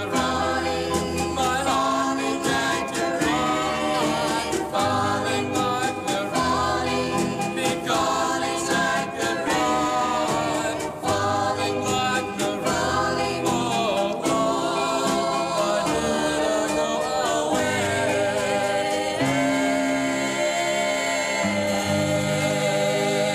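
1950s doo-wop record: a vocal group singing in close harmony over a moving bass line, with longer held notes in the last few seconds.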